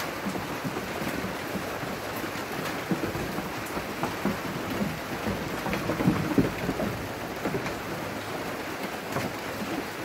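Steady rain-like hiss, with a few low knocks and rumbles between about three and seven seconds in.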